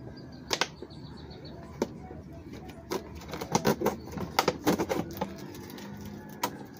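Thin plastic bottle crackling and clicking under the hands as it is cut open, in irregular bursts that come thickest in the middle.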